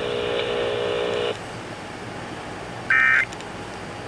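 A steady, buzzy electronic tone cuts off about a second in, leaving faint radio hiss. Near the end comes one short, loud burst of the EAS SAME header's data tones, the digital screech that opens a new emergency alert.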